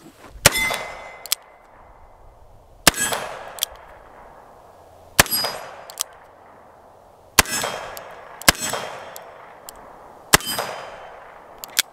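Six shots from a Rossi RP63 stainless revolver firing .38 Special, spaced about two seconds apart with the last three closer together. Each shot is followed by a metallic ringing.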